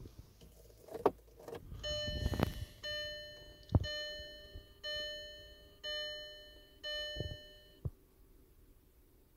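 Skoda Octavia dashboard warning chime ringing six times, about once a second, each tone fading before the next, while the ignition key is being worked. A few sharp clicks and knocks come from the key and ignition, one in the middle of the chimes.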